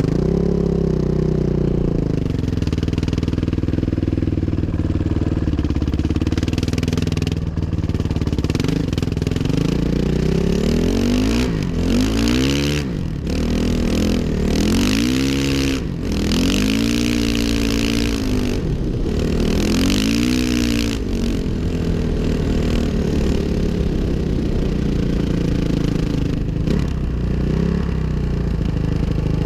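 2005 Suzuki RM-Z 450's single-cylinder four-stroke engine running under way. It holds steady at first, then revs up and drops back several times in quick succession through the middle, and settles back to a steady run near the end.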